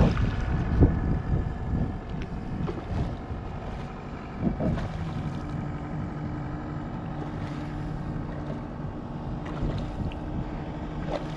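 Wind rumbling on the microphone over water sounds around a kayak, with a few faint clicks. About halfway through, a steady low hum comes in and holds.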